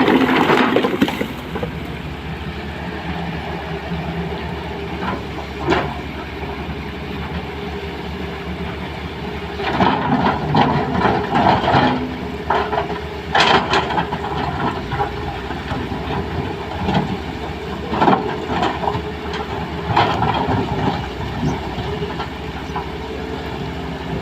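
SANY excavator's diesel engine running steadily, with louder bursts of noise at the start and several times later on.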